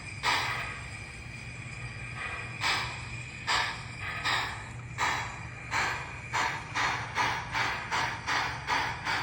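Sound system of an MTH model Nickel Plate Road 765 steam locomotive playing steam exhaust chuffs as the engine runs in reverse. The chuffs come faster as it picks up speed, over a steady low hum.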